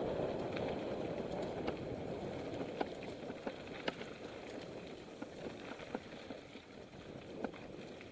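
Mountain bike rolling along a dirt singletrack: a steady rush of tyre and riding noise that eases off after the first few seconds, broken by scattered sharp clicks and rattles from the bike over rough ground.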